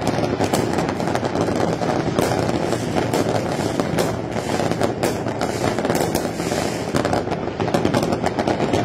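A dense fireworks display: many firecrackers and crackling shells going off at once in a rapid, unbroken crackle of pops and bangs.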